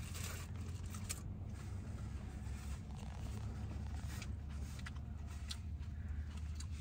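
Aluminium foil wrapper crinkling in short, scattered rustles as a wrapped sandwich is handled, over a steady low hum in a pickup truck's cab.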